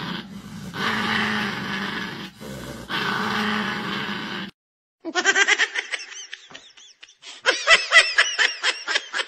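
A small dog grumbling and growling while lying on its back being held. After a brief silence, rapid high-pitched giggling laughter in quick bursts.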